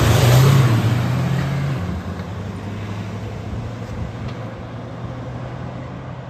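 Two diesel Mahindra SUVs, a Thar and a Scorpio, launching together from a standstill and accelerating hard away. The engine note is loudest and rises slightly in the first two seconds, then fades as they pull into the distance.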